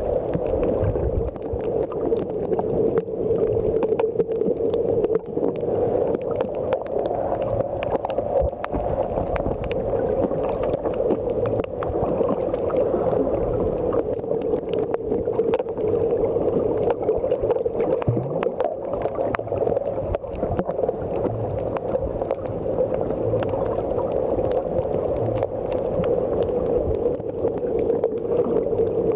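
Underwater sound picked up by a camera in a waterproof housing while filming a coral reef: a steady, muffled water rush with faint scattered crackling clicks.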